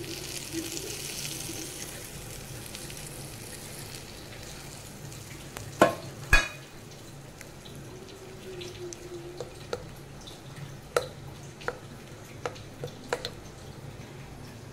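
Hot tempering oil with mustard seeds, urad dal, dried red chillies and curry leaves sizzling as it is poured onto coriander chutney, the hiss fading over the first few seconds. About six seconds in come two sharp knocks, then a spoon clinks lightly against the bowl as the chutney is stirred.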